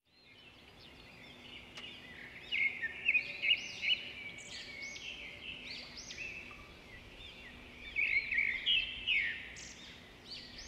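Birds chirping and singing: many short, repeated whistled notes overlapping, louder in two stretches, over a faint steady low hum.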